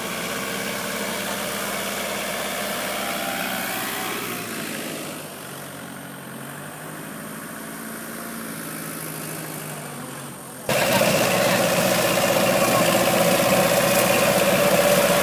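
Kubota L5018 50-horsepower diesel tractor engine running steadily. It drops quieter for several seconds in the middle, then comes back suddenly louder about ten and a half seconds in.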